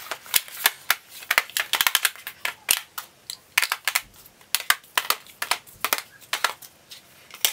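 Eyeshadow palettes, cardboard and plastic cases, being set down and stacked on top of one another on a hard floor: a quick, irregular run of clacks and taps.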